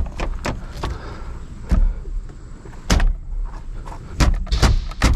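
About eight irregular knocks and thumps as a stock Honda Civic steering wheel is jerked and struck to break it free of the steering-column splines. The retaining nut is left on a couple of threads to catch it.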